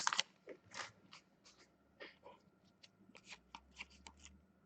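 Faint, scattered rustles and light ticks of a freshly opened hockey card pack and its cards being handled.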